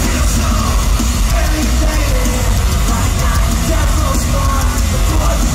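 Live pop-punk band playing loud over an arena PA, with drums, a strong bass and a lead singer.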